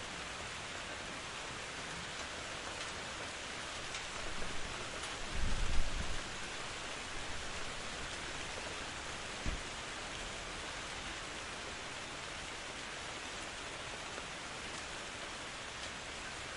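Steady rain falling, an even hiss, with a low rumble about a quarter of the way in that swells and fades over two seconds or so, and a single short low thump a few seconds later.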